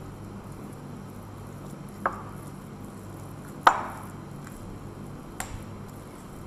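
A spoon knocking against a glass mixing bowl while a cabbage and flour batter is stirred: three sharp knocks, each ringing briefly, the middle one loudest. A low steady hum runs underneath.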